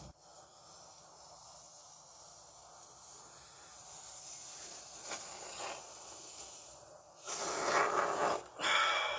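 Can of expanding foam spraying into a small hole to seal it: a faint steady hiss, then two louder hissing bursts near the end.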